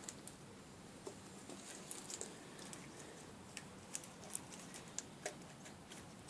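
Faint, scattered light clicks and taps of a vacuum cleaner's replacement motor and plastic housing being handled and seated, with a slightly sharper tap a little past the middle.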